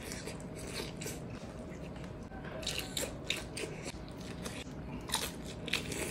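Close-up eating sounds: a man biting into and chewing salted egg shrimp, with irregular sharp wet mouth clicks that cluster about five seconds in.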